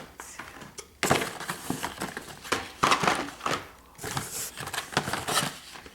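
Plastic product packaging crinkling and rustling in irregular bursts as packaged items are handled and counted out.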